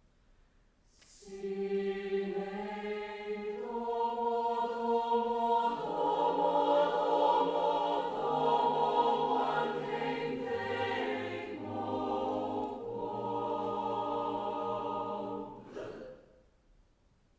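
Choir singing long held chords that change every few seconds, swelling in the middle and fading away about sixteen seconds in, closed by a brief breathy sound.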